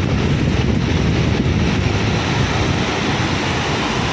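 Steady rush of a fast-flowing mountain stream running across the road, with strong flow. Wind buffets the microphone.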